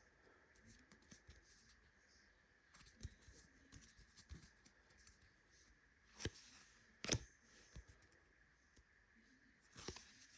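Faint handling of a trading card pack and its cards: soft rustling with a few sharp clicks or snaps, the loudest about six and seven seconds in and again near the end.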